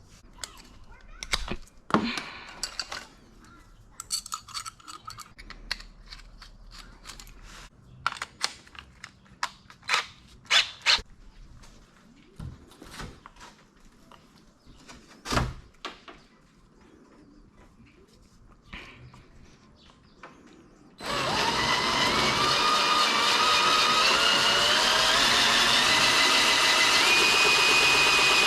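Scattered clicks and scrapes of hand work on a carbon fiber hood, then about three-quarters of the way in a high-speed power tool starts up and runs loud and steady, its whine climbing in pitch, as it cuts through the carbon fiber.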